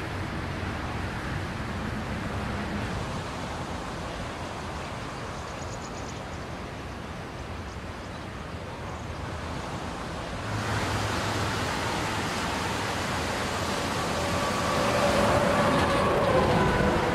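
Steady outdoor rushing noise. About ten seconds in it gives way to a louder, fuller rush from fast-flowing, churning floodwater, with faint steady tones near the end.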